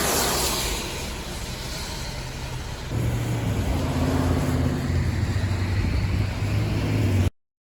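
Road traffic on a snowy highway. A vehicle swishes past at the start, then a steady low engine hum from a heavier vehicle comes in about three seconds in and grows louder. The sound cuts off suddenly near the end.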